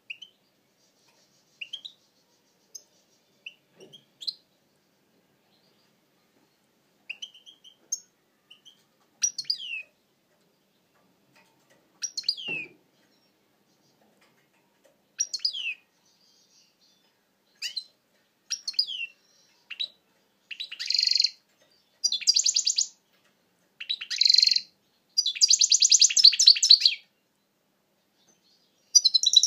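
European goldfinch singing: scattered short, sliding high notes at first, building after about twenty seconds into longer, louder song phrases with fast trills.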